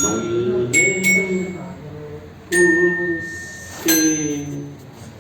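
Tuned bells struck one at a time, five strokes, each leaving a clear high ringing tone that fades. A voice sings held notes along with them.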